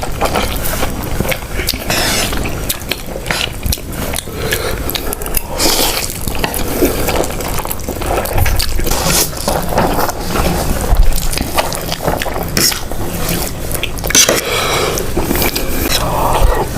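Close-miked eating of saucy spicy noodles: wet slurping and chewing with many small sticky mouth clicks.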